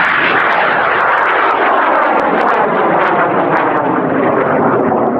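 High-power rocket motors burning at liftoff, a rocket flying on a core motor plus six strap-on boosters: a loud, steady roar with sharp crackles through it.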